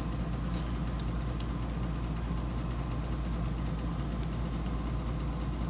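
Steady low hum with an even background noise, with a couple of faint clicks in the first second and a half.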